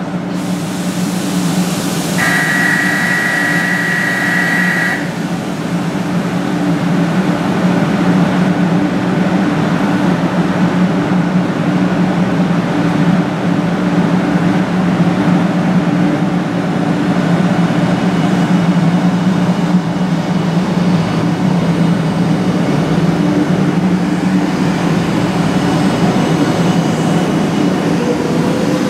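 JR West 500 series shinkansen at the platform, its electrical equipment and traction motors giving a steady low hum with a broad rushing noise as it pulls out. About two seconds in, a steady electronic signal tone sounds for about three seconds.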